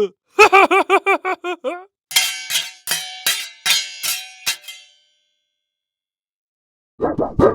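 Cartoon sound effects: a short warbling pitched sound wobbling quickly up and down, then about seven sharp metallic strikes that ring and fade, and near the end another pitched effect begins.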